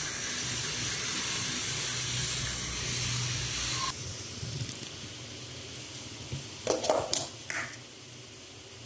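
A steady hiss that cuts off about four seconds in, then a few short scraping, rustling sounds near seven seconds in, as the plastic lid is pulled off a tub of ice cream.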